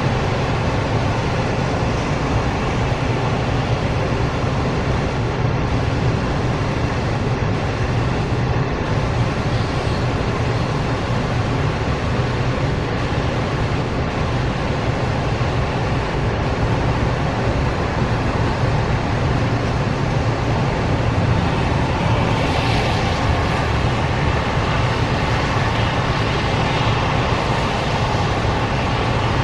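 Freight train of covered hopper cars rolling past with a steady rumble of wheels on rail, mixed with cars hissing by on a wet road. A car's tyre hiss swells about three-quarters of the way through.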